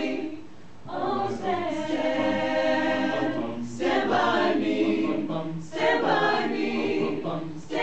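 Mixed choir of men and women singing sustained chords in phrases. There is a short break just after the start, and brief pauses between phrases roughly every two seconds.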